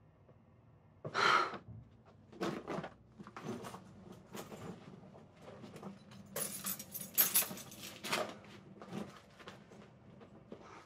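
Rustling and small clinks of belongings being handled and put into a leather handbag, in a string of short irregular bursts, the loudest about a second in.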